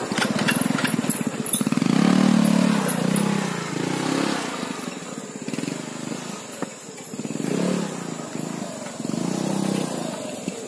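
Motorcycle engines revving as the bikes climb a steep dirt track, the throttle opening and closing in several surges, the loudest about two seconds in.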